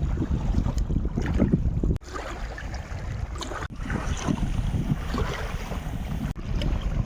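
Wind buffeting the microphone with a heavy rumble, and a fine crackle from the cooking fire that comes up about two seconds in. The sound breaks off abruptly a few times.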